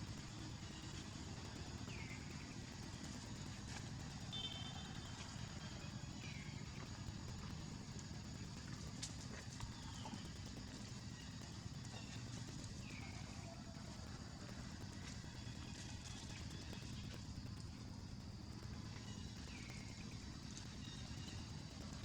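Outdoor background with a steady low rumble. Faint, short, high falling calls come every few seconds, about five times.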